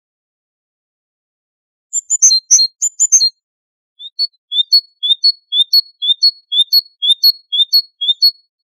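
Great tit singing: after a brief silence, a quick high phrase falling in pitch is repeated about three times. Then comes a steady run of about ten two-note phrases, two a second, the second note higher than the first, in the great tit's typical 'teacher-teacher' song.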